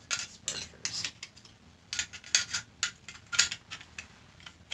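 Flat metal strips and a slotted metal ring of a stove pot support knocking together as they are handled and fitted: irregular light metallic clicks and clinks, in quick clusters.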